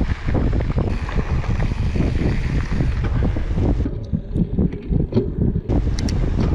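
Wind rushing over the microphone while a mountain bike is ridden along a dirt trail, with a constant low rumble and irregular knocks and rattles from the bike going over rough ground.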